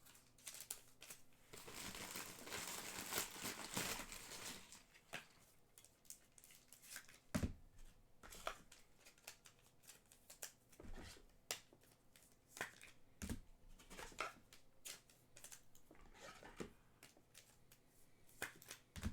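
Trading cards being slid into plastic card sleeves: a soft crinkling of the plastic for a couple of seconds near the start, then scattered light taps and clicks as the cards are handled and set down.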